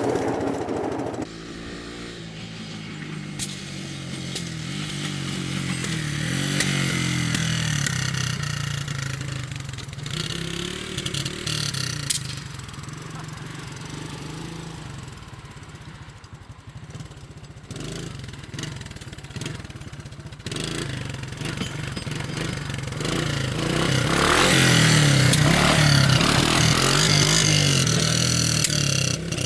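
Honda three-wheeler's single-cylinder engine running and revving up and down as it is ridden, loudest near the end.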